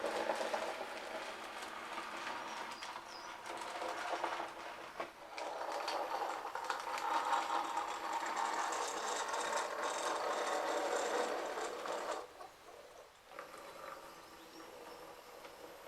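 Model railway train running along the track: a steady small-motor whirr with wheels running on the rails. It drops away sharply about twelve seconds in.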